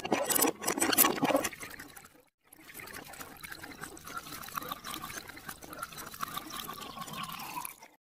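Water running from a plastic hose and splashing onto toy trucks and wet sand. It is louder for the first two seconds, stops briefly, then goes on as a quieter, steady trickle.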